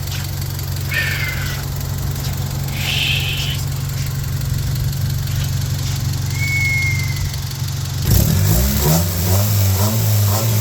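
1997 Honda Civic's replacement D16Y7 four-cylinder engine idling steadily, then revved up and down several times in quick blips for the last couple of seconds.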